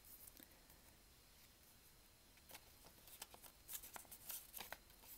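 Quiet clicks and taps of a stiff white cardboard iPhone documentation insert being handled and turned over in the fingers. The first half is nearly silent, and the taps come scattered from about halfway through.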